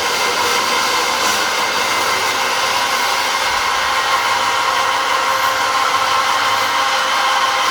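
Industrial metal-working machinery running: a steady hiss with a faint constant whine, even and unbroken throughout.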